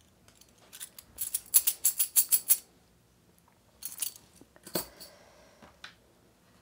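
Small metal pieces clinking and rattling against each other on a tabletop. A quick run of about seven sharp clinks comes about a second in, then a few more, one of them louder with a brief ring.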